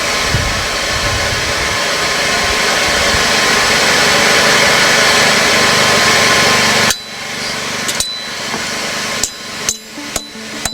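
A loud steady rushing noise for about the first seven seconds, then a hammer striking the crossguard on the anvil: several irregular blows, each with a short metallic ring.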